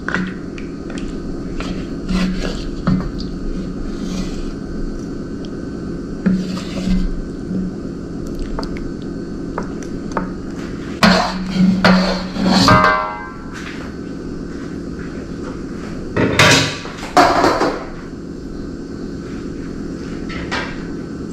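Serving spoon scraping and knocking against a cooking pot as curry goat is spooned onto a plate of rice, with the loudest scrapes and clinks in two spells around the middle and a quick rattling scrape among them. A steady low hum runs underneath.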